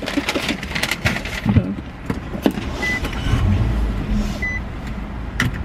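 Paper takeout bag crinkling and rustling as it is handled, then a low rumble inside the car, with two short high beeps.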